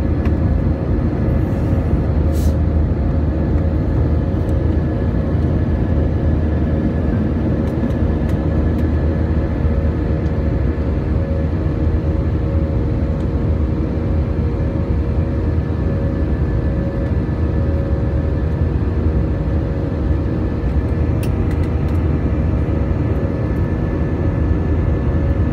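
Airbus A320 jet engines at climb power, heard inside the cabin over the wing. A steady low rumble with a faint steady hum in it.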